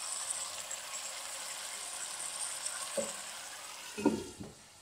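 Chicken strips sizzling in a little water in a nonstick pan, a steady hiss. About three seconds in comes a click, and about four seconds in the lid knocks a few times as it is set on the pan, after which the sizzle fades.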